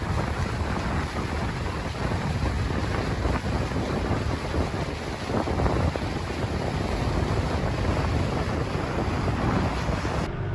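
Wind blowing across the microphone aboard a motor yacht underway, over a low rumble of the boat and water. A steady rush that turns abruptly duller just before the end.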